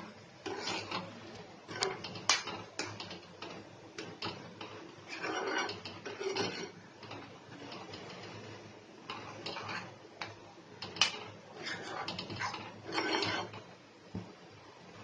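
Metal spatula scraping and tapping against a kadai as eggs are stirred and broken up into a scramble. The strokes are irregular, with a few sharper clicks.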